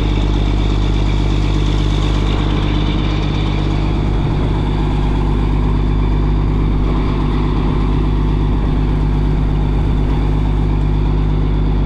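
Fishing boat's engine running steadily at constant speed, a low, even hum that does not change.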